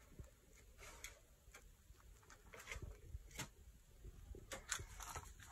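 Near silence in a small room, broken by a few faint, irregular clicks and taps.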